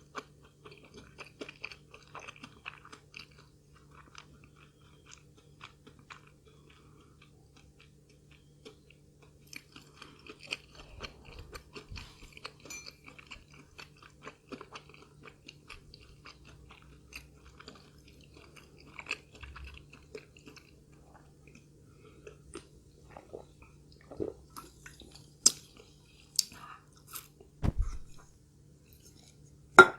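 Close-miked chewing and crunching of food, with small wet mouth sounds throughout. Near the end come a few louder sharp clicks and a thump.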